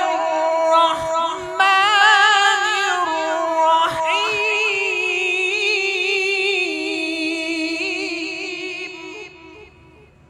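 A qari's melodic Quran recitation: one man's voice holding long, ornamented notes with a fast vibrato, dying away about nine seconds in.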